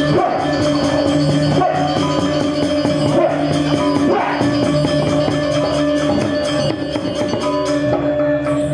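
Balinese gamelan orchestra playing fast dance accompaniment: dense rapid strikes on bronze metallophones and drums over steadily ringing metallic tones. The high metallic shimmer falls away near the end.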